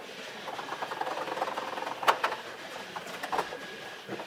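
Hands working on a 3D-printed plastic airframe: a run of quick small clicks and rattles, then one sharp click about two seconds in, with a few scattered knocks after.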